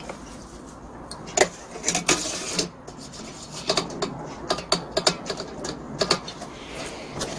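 Irregular clicks and knocks of plastic and metal parts being handled and fitted by hand on a butane-canister brush cutter's small engine, with a short hissy scrape about two seconds in.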